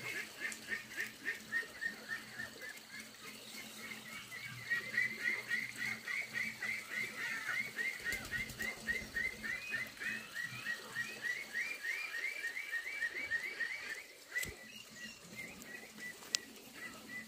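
A bird calling in a long, rhythmic run of short chirps, several a second. The chirps are loudest in the middle and drop off sharply about two-thirds of the way through, then go on faintly.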